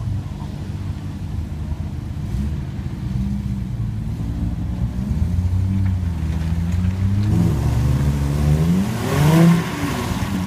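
Engine of a military off-road truck labouring in a deep mud hole, its revs rising and falling, then climbing steeply to a loud peak near the end before dropping back.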